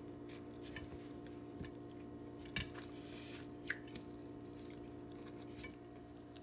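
A person chewing a mouthful of food close to the microphone, with two sharper mouth clicks near the middle.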